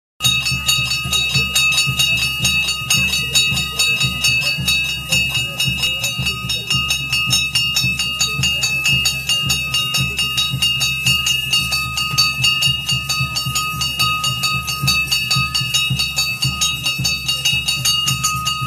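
Loud, fast drumming with jingling metal percussion at an even beat, with a few high held tones over it.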